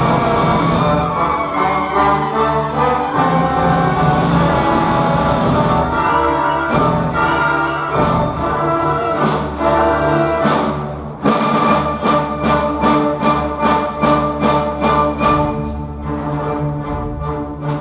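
Youth symphony orchestra playing live, with strings and horns. Full sustained playing gives way, about eleven seconds in, to a run of short, detached chords about three a second, and the music softens near the end.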